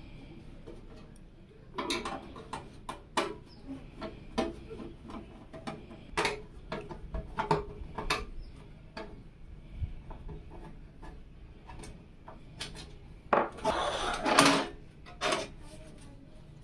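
Hands handling PC case parts and components: scattered clicks, taps and knocks, with a louder scraping, rustling stretch near the end.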